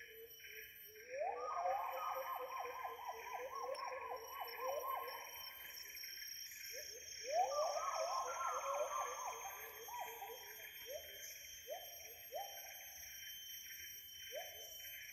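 A wild animal's call in rainforest: quick rising notes, about eight to ten a second, in two long bouts, slowing to a few single notes near the end. A steady drone of insects runs underneath.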